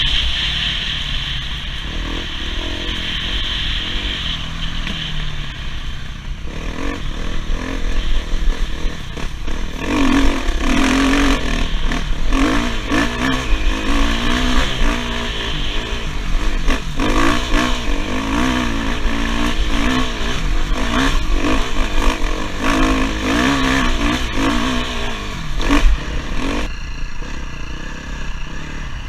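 Off-road motorcycle engine revving up and down again and again with the throttle on a rough trail, mixed with frequent knocks and clatter from the bike over bumps.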